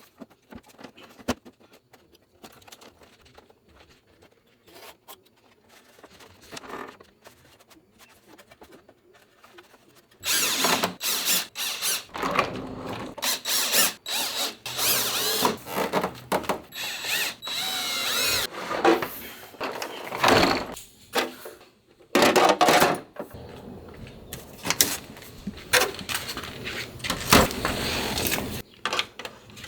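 Cordless drill driving the casing screws back into a portable air conditioner in repeated short runs, its motor whining up and down, after some light clicks and handling of the plastic parts.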